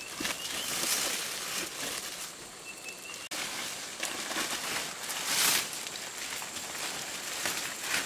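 Large palm fronds rustling and swishing as they are pulled and cut by hand, in several separate bursts, the loudest about five and a half seconds in.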